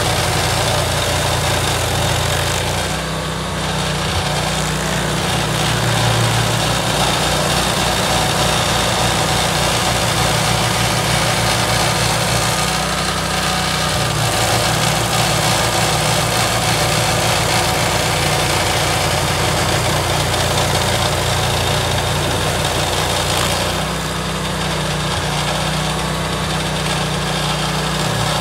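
Rayco RG1635 stump grinder running under load, its engine going steadily while the cutter wheel grinds into a tree stump, throwing out chips. The engine note changes briefly about three seconds in and again near the end.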